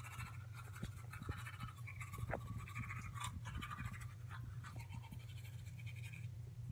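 Manual toothbrush scrubbing teeth: many quick bristle strokes in a close, wet scrubbing, over a steady low hum.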